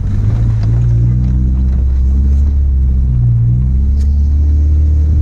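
Volkswagen Beetle's engine running under varying throttle, its pitch dropping and rising around a second in and again past the three-second mark. The car has a busted radiator and a leaking oil pan.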